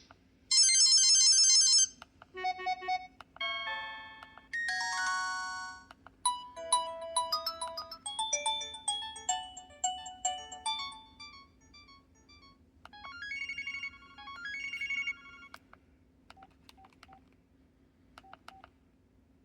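Preloaded ringtones and alert tones of an LG LX160 phone, played from its small speaker one after another: about half a dozen short electronic beep tunes and jingles with brief gaps between them, ending in a few quieter short paired beeps.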